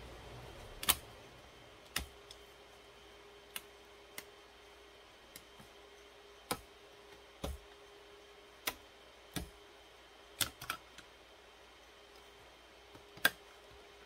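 About a dozen sharp, irregular clicks and snaps of latches and parts being handled inside an open Dell rack server chassis, over a faint steady hum.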